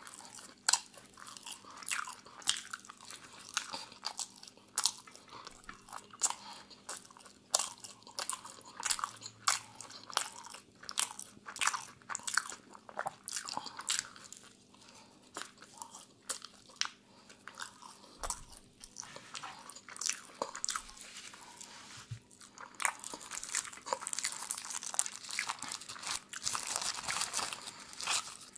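Close-miked eating of pizza: bites and chewing with many sharp, irregular mouth clicks. In the last few seconds a shawarma's wrapper crinkles and rustles as it is peeled back.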